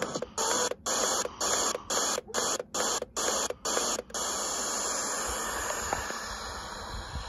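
Portable FM radio hissing with static between stations, cut by a brief mute about twice a second as the tuning button steps the frequency up the band. After about four seconds the stepping stops and the static hiss runs on steadily, with a few low thumps near the end.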